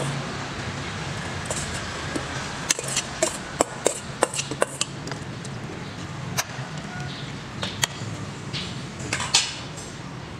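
A metal utensil clinking and scraping against a cooking pot as vegetables are stirred in it. A quick run of sharp clinks comes about three to five seconds in, and a few single ones follow later, over a steady low hum.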